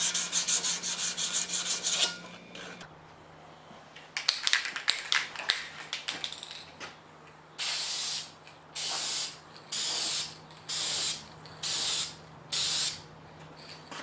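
Hand sanding with quick back-and-forth strokes for the first two seconds, then a short rattling. After that come six short bursts of aerosol spray paint, each under a second long and about a second apart.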